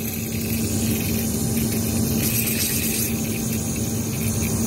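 Aerosol can of DPF cleaner hissing steadily as its contents are emptied through a long hose into a clogged diesel particulate filter, to foam up the ash inside. A steady low hum runs underneath.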